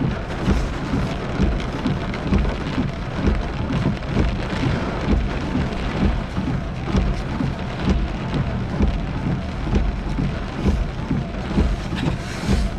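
Heavy rain pelting a car's roof and windshield, heard from inside the car as a dense, steady patter of drops, typical of driving under a thunderstorm's edge of the hail core.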